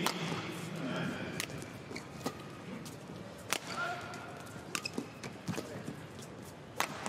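Feathered shuttlecock struck back and forth by badminton racquets in a fast doubles rally: about six sharp cracks, roughly one a second, irregularly spaced.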